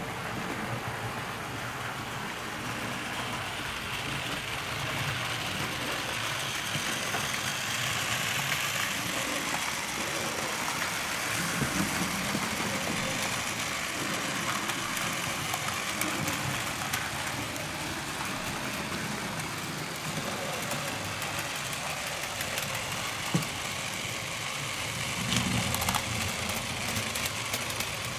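Model railway train running steadily along the track, a continuous rolling and motor noise that swells a little in places, with one sharp click near the end.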